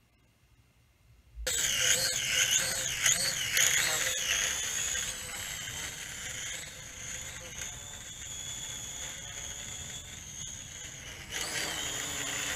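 JJRC H11WH quadcopter's motors and propellers whining in flight, starting after about a second and a half of near silence. The high whine wavers up and down at first, then holds steadier, and steps louder near the end. It carries a noise that the flier suspects may come from the gears.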